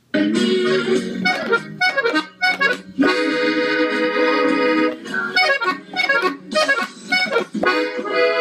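Gabbanelli diatonic button accordion in E playing a melodic passage: quick runs of short notes, with a long held chord about three seconds in, then more short notes.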